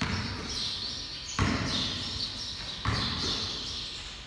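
Basketball bouncing on a concrete floor, three bounces about a second and a half apart, each echoing in a large, bare garage hall.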